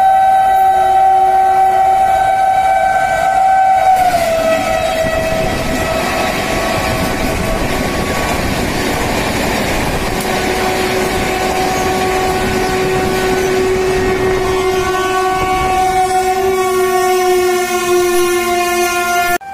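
An Indian Railways locomotive horn sounding one long blast that drops in pitch about four seconds in as the locomotive passes, followed by the steady rush and rail clatter of an express train running through the station at speed. Near the end another long horn blast sounds, sliding slightly down in pitch.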